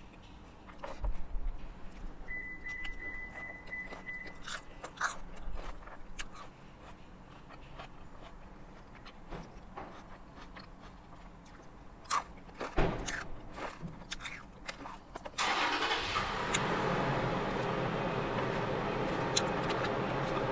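A car engine nearby starts about fifteen seconds in and keeps running steadily, much louder than the rest. Before it, a fork clicks and scrapes on a plastic food tray with chewing, and a high electronic beep sounds for about two seconds.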